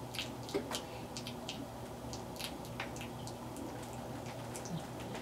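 Irregular soft clicks and wet ticks, a few each second, over a steady low hum.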